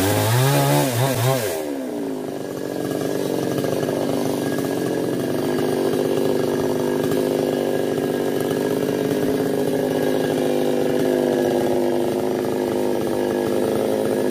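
Two-stroke Maestro chainsaw with a 22-inch bar, revving hard in the first couple of seconds with a rising and falling whine, then running steadily at a lower, even pitch.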